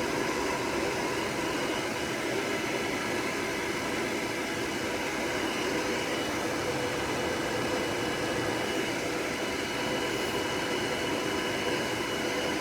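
Hair dryer blowing steadily, a constant rush of air with a faint steady whine from its motor.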